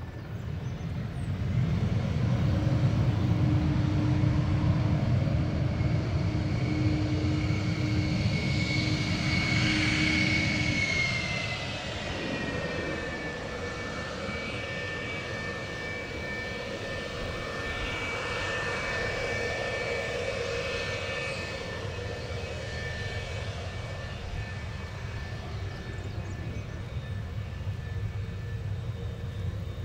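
An RF-4E Phantom II's two J79 turbojets running on the runway at low power: a steady high whine over a low rumble. About eleven seconds in, the rumble drops and the whine dips a little, then holds steady.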